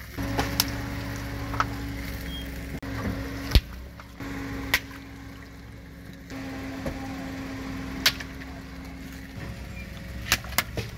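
Car engine idling with a steady low hum, broken by several sharp pops as water balloons burst under the tyre. The loudest pop comes about three and a half seconds in.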